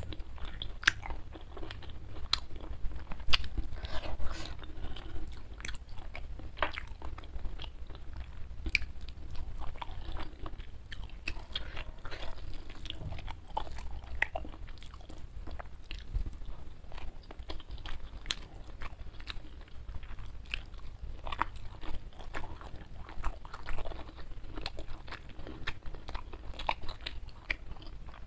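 Close-miked chewing and eating by hand: many short, sharp wet mouth smacks and clicks at an irregular pace.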